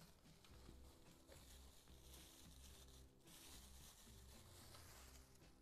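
Faint crinkling and rustling of a thin plastic bag being handled.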